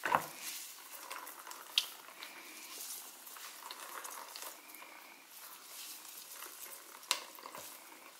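Water dripping and trickling out of steamed grated cauliflower as it is wrung in a cloth towel, with a sharp knock right at the start and two smaller clicks later.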